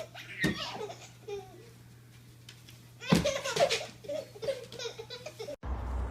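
Laughter in two bursts, a short one near the start and a longer one from about three seconds in. Near the end it cuts off abruptly to a steady background rumble.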